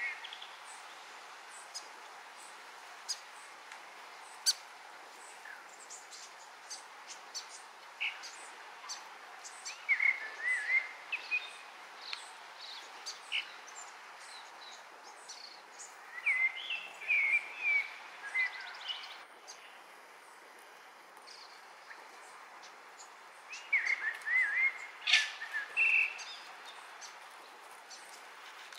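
Wild songbirds calling in the background: short twittering, warbling phrases come in three bursts, about 10, 17 and 25 seconds in, with scattered single chirps between them over a steady background hiss.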